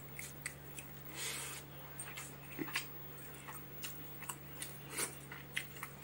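Eating sounds from a pakhala meal: a scatter of short, sharp clicks and mouth smacks, with a brief hiss about a second in, over a steady low hum.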